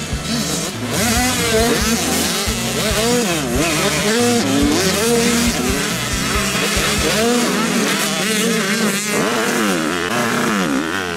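Several 85 cc two-stroke motocross bikes racing, their engine notes overlapping and repeatedly revving up and falling back as they accelerate and ease off.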